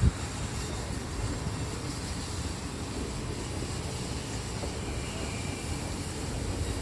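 Electric S-Bahn train, a DB Class 425 multiple unit, running with a steady low rumble and hiss. There is a brief knock right at the start.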